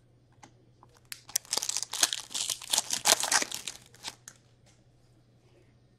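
Upper Deck Metal Universe hockey card pack wrapper crinkling as it is torn open: a dense crackle starting about a second in and lasting some three seconds, after a few light clicks of cards being handled.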